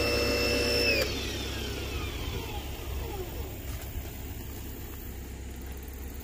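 Portland 1750 psi electric pressure washer's motor running with a steady whine, then shutting off about a second in, its whine falling in pitch as it spins down over a couple of seconds.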